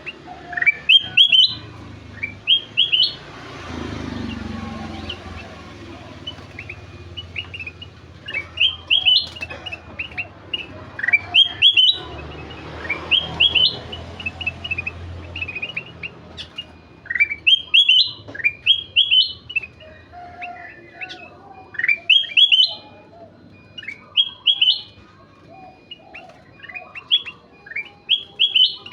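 A kutilang emas bulbul singing busily: short bright rising chirped phrases, repeated about once a second. A soft rushing noise rises twice under the song, early and again near the middle.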